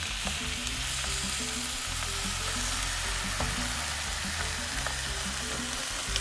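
Chicken breast and mushrooms sizzling in a frying pan with heavy cream just added, stirred with a spoon, with a few faint scraping clicks.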